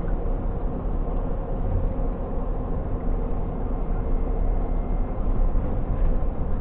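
Scania G460 truck's straight-six diesel engine running steadily while driving, a low steady drone of engine and road noise heard inside the cab.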